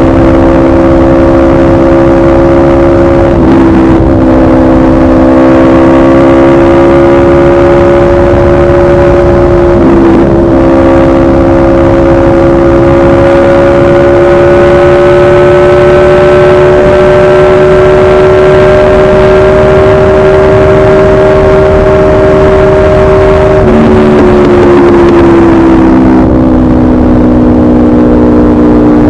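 Aprilia RSV4 RF V4 engine through a de-catted SC Project CRT exhaust, under sustained load at high revs. Brief breaks in the note come about 3.5 and 10 seconds in; the pitch then climbs slowly and falls away near the end as the throttle comes off.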